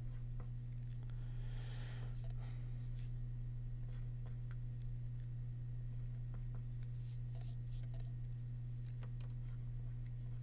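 Pencil writing on paper: short scratching strokes with a longer stroke a couple of seconds in, over a steady low hum.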